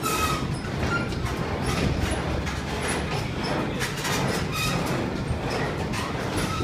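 Amusement-ride car rumbling along its track, with clattering clicks and a few short squeaks.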